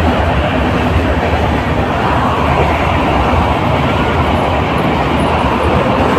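Passenger train coach running along, a steady loud rumble heard from inside by the open door.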